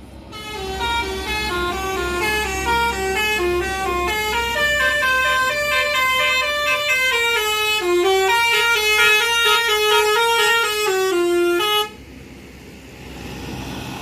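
Telolet musical horn on an Indonesian tour bus playing a stepped multi-note tune for about twelve seconds, then cutting off abruptly, leaving a low engine rumble.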